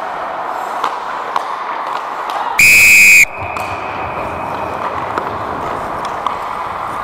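A referee's whistle blown once in a single steady, shrill blast of well under a second, stopping play. Its tone lingers faintly in the arena for a moment afterwards, over a steady hiss of rink noise with a few sharp knocks.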